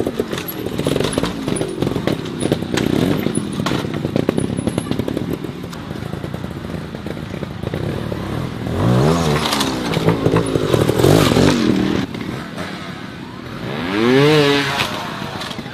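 Trials motorcycle engines being blipped in short rises and falls of revs, over a rattle of tyres and chassis clattering on rock. The loudest rev comes near the end.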